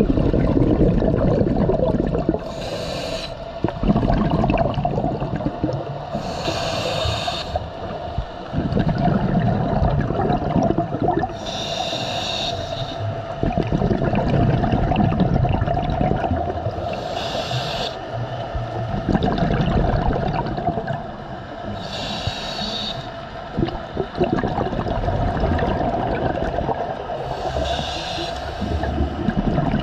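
A scuba diver breathing underwater through a regulator: a short hiss on each inhalation, six times about five seconds apart, each followed by a longer bubbling rumble of exhaled air, over a steady hum.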